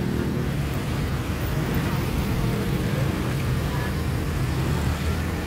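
Steady low rumble of road traffic passing a busy street, with faint voices mixed in.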